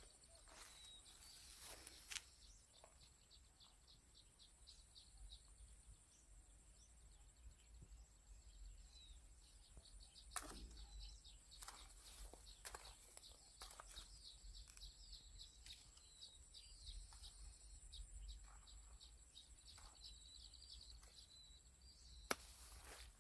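Faint outdoor ambience: small birds twittering in short high chirps over a steady high tone, with a few light clicks.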